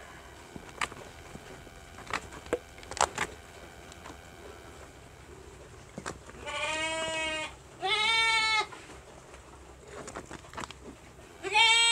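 Sheep bleating: two calls of about a second each a little past the middle, the second wavering in pitch, and a louder third call near the end. A few faint clicks come in the first few seconds.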